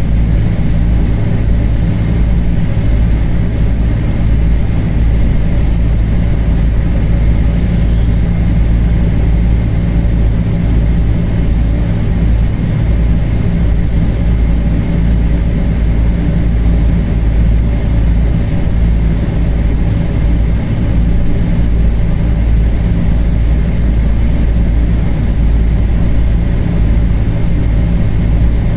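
Steady cabin noise inside a Boeing 777-300 airliner: an even, loud low rumble from its Rolls-Royce Trent engines, with a faint steady whine above it.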